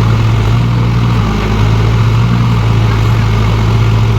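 Engine of a tractor-mounted pile-boring drill running steadily at a constant pitch, with a strong low hum.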